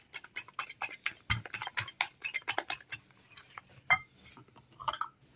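Wire whisk beating egg and sugar in a ceramic bowl, its wires clinking quickly against the bowl for about three seconds, then a few scattered taps as the whisking stops.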